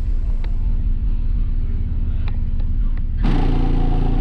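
Car audio subwoofers playing a bass-heavy song at high volume, heard from outside the vehicle as a deep, steady low end. About three seconds in, a fuller, brighter passage with strong pitched tones comes in for about a second and a half.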